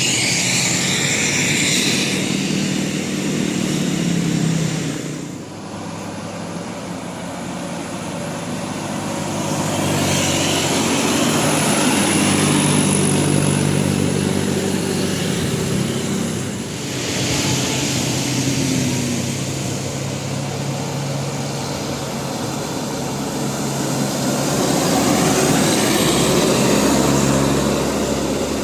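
Large buses driving past one after another: engine and road noise swelling and fading, with the engine pitch shifting and falling as each goes by.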